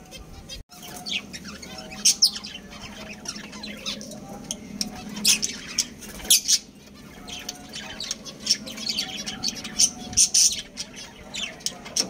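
A small flock of caged budgerigars and lovebirds chattering, with many quick, high chirps and squawks overlapping throughout.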